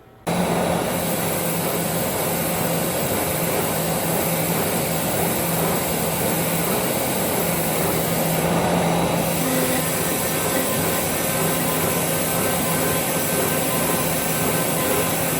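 CNC router running with its spindle turning: a loud, steady machine noise that cuts in suddenly and holds even throughout, with faint steady hums under it.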